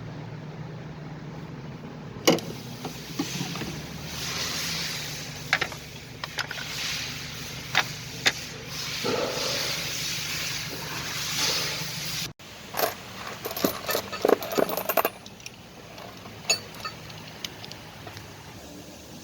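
Metal tools and parts clinking, clanking and scraping during engine work, in irregular sharp knocks and rattles over a steady low hum. The sound breaks off abruptly about twelve seconds in, then the clinking starts again.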